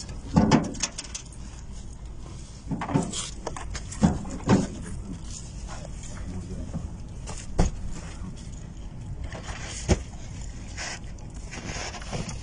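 Irregular knocks and thumps of wrapped brick-shaped packages being pulled out of a hidden compartment under a bus floor and handled, about six sharp ones spread out, the loudest about half a second in, over a low steady hum.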